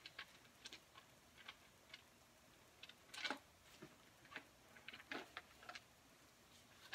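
Faint paper rustles and flicks of Bible pages being leafed through, with two louder page turns about three and five seconds in.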